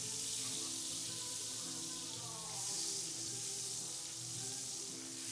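Butter sizzling steadily in a hot skillet, with background music of held notes playing over it.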